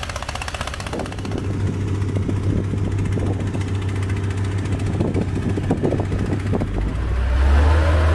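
Diesel engines running: a fast, pulsing engine beside a water pump in the first second, then a steady engine hum with scattered knocks. From about seven seconds a wheel loader's diesel engine gets louder and revs up and down.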